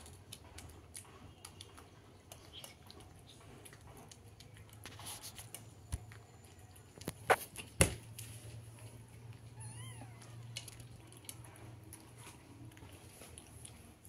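A cat eating from a steel plate, with small wet chewing clicks throughout and a few louder knocks about six to eight seconds in. Around ten seconds in there is a short faint meow.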